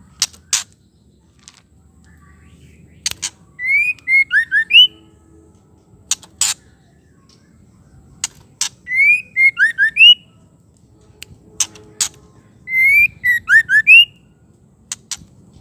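Female white-rumped shama calling: a short phrase of quick rising whistled notes, given three times about four to five seconds apart, with loud sharp single clicking notes in between.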